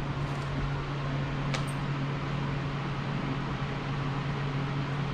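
Steady hum of a running fan, with one sharp click about a second and a half in.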